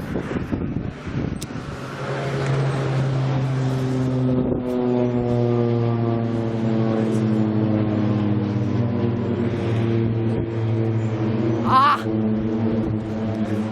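Aircraft engine droning as a plane flies past, its steady tone slowly falling in pitch. A short high wavering sound cuts in briefly near the end.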